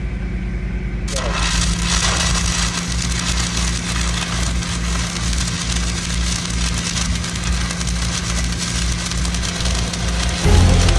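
Stick-welding arc burning on a steel pipe: a steady crackling hiss that starts about a second in, over a steady engine hum. Music comes in near the end.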